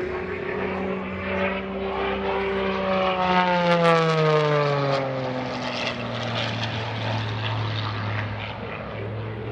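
MXS aerobatic monoplane's piston engine and propeller making a low, fast pass. The engine note is loudest about four seconds in and drops in pitch as the plane goes by, then holds a lower steady note.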